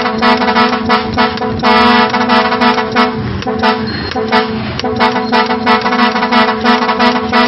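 Custom multi-tone air horn blowing a steady chord with a fast, even flutter. Midway the full chord drops away for about two seconds, then comes back.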